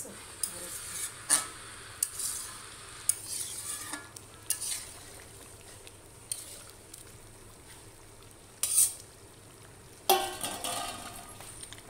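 A long metal spatula scraping and knocking against a metal karahi as a mutton and potato curry is stirred, over the sizzle and bubble of the thick, nearly cooked gravy. There are a handful of separate sharp scrapes, the loudest about a second in and twice near the end.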